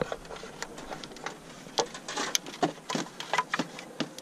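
Scattered clicks and light knocks of gloved hands working a valve cover section and hoses out past the wiring harness in an engine bay.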